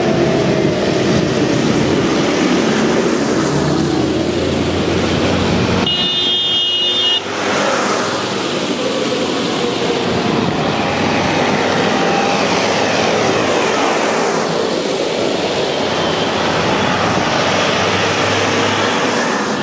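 Tractor engines running as tractors set off and drive past one after another, the engine note rising and falling as each goes by.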